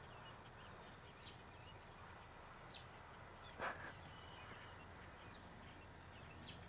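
Quiet outdoor background: a faint steady hiss with a few faint, high bird chirps, and one short sharp sound about three and a half seconds in.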